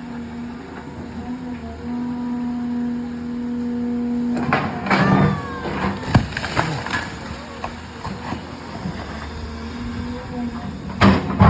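Excavator engine running steadily. About halfway through there is a cluster of clanks and squeals with one sharp knock.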